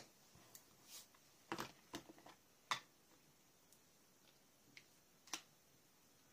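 Near silence broken by a handful of light taps and clicks of small craft supplies being handled and set down on a table, the sharpest a little under halfway through.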